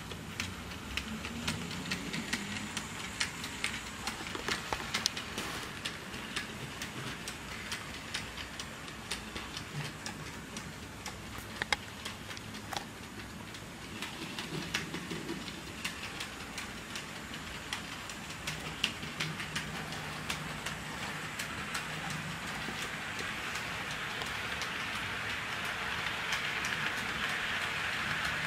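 A Hornby LB&SCR Terrier OO model steam locomotive runs on sectional track with its train of wagons and boxcars. The small wheels make a steady patter of many tiny clicks over the rail joints, over a faint motor hum. It grows louder near the end as the cars pass close.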